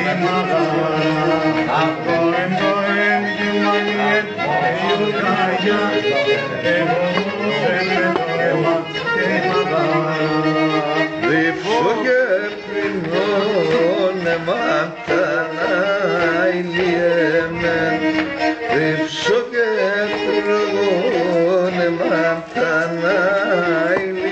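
A bowed folk lyra played solo: a busy, ornamented melody over a steady lower sustained note.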